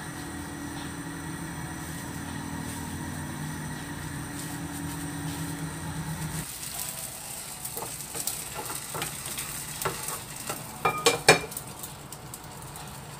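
Food sizzling in a frying pan, with a cluster of sharp clicks and clinks near the end. A steady low hum sounds under the first half and stops about halfway through.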